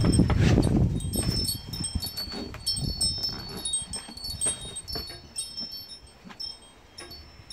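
Wind chimes ringing, several high tones struck again and again throughout. Under them, rustling and handling noise of packing paper, loudest in the first second.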